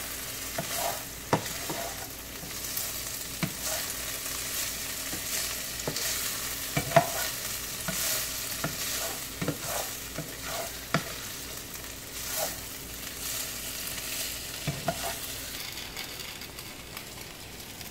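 Ground beef sizzling in a nonstick frying pan while a spatula stirs it, with irregular scrapes and taps of the spatula against the pan.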